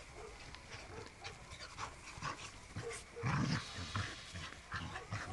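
Dogs moving about close by on grass, with short irregular rustles and light breathing, and a loud low thump a little over three seconds in.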